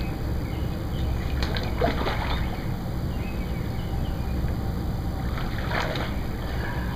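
Water splashing and sloshing in two bursts, about a second and a half in and near the end, over a steady low rumble. A hooked channel catfish is thrashing at the surface as it is played in to the bank.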